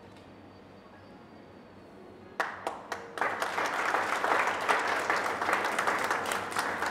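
Quiet room tone, then about two and a half seconds in an audience starts applauding, a dense clapping that swells and carries on.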